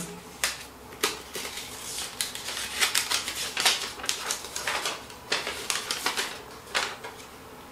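Paper leaflets rustling and crinkling as they are taken out and unfolded, a run of short crackles and taps that thins out near the end.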